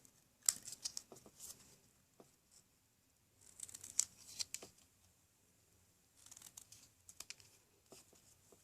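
Scissors snipping through paper in three short bursts of quick cuts, trimming a frame by hand.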